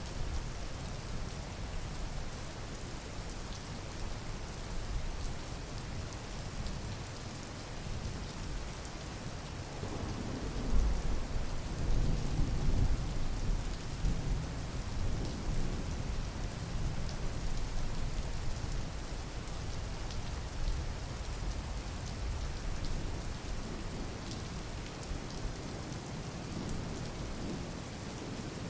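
Steady rain falling, with a low rumble of thunder swelling about ten seconds in and easing off a few seconds later.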